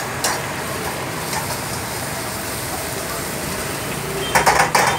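A steady rushing background noise, then, about four seconds in, a quick run of loud metal clanks and scrapes: a steel spatula striking a wok as egg noodles are stir-fried.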